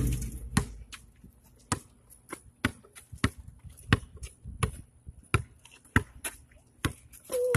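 Rubber basketball bouncing on a concrete street as a boy dribbles: sharp single bounces at an uneven pace, roughly one or two a second.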